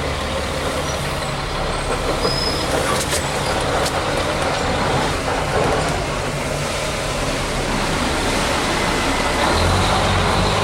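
Diesel engine of a 7-ton military truck running steadily under way, growing louder about a second before the end.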